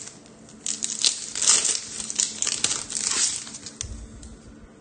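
Trading-card pack wrapper being torn open and crinkled by hand, a dense crackling with many sharp ticks for the first three seconds, then quieter rustling as the cards come out.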